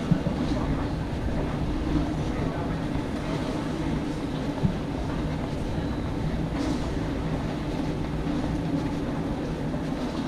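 Wheels of a rolling suitcase running over a hard terminal floor: a steady low rumble with three short knocks, near the start, about two seconds in and a little before the middle.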